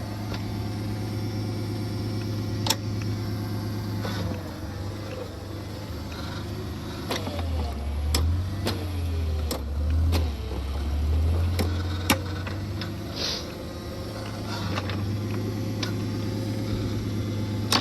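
Engine of a post-hole auger rig running steadily at idle, its low note dipping and swelling for a few seconds around the middle, with scattered sharp knocks and clinks.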